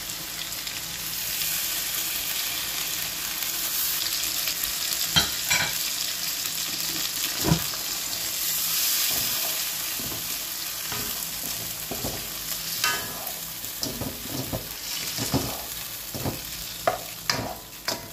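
Chicken pieces sizzling and frying in a metal wok in a sauce just thickened with cornstarch slurry, stirred with a spatula. A steady hiss runs under sharp knocks and scrapes of the spatula against the wok, which come a few times in the middle and more often in the last several seconds.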